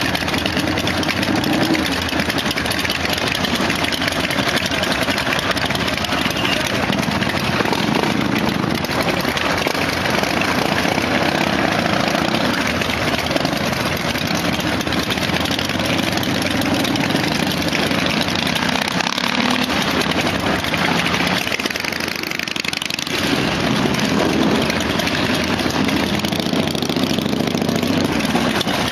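Several Harley-Davidson chopper motorcycles' V-twin engines running together, heard from a bike riding in the group through traffic, with a brief lull about three-quarters of the way through.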